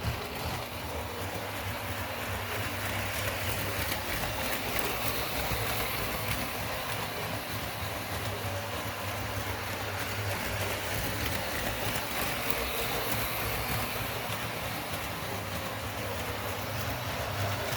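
Toy electric train set running in reverse: the small motor hums and the wheels rattle steadily along the track.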